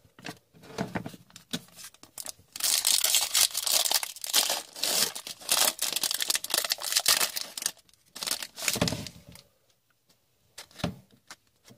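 Foil wrapper of an Upper Deck Synergy hockey card pack being torn open and crinkled by hand, a dense rustling that runs for several seconds and stops about eight seconds in. A few soft handling noises of the cards follow.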